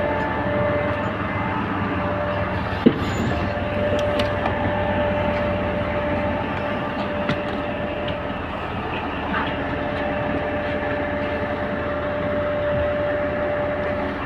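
Passenger train running: a steady rumble with a held whine, and a single sharp click about three seconds in.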